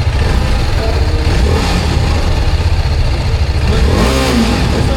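TVS Apache RR310's single-cylinder engine running, with a light throttle blip about a second and a half in. It carries an abnormal mechanical noise that the mechanic places in the top end, at the camshaft.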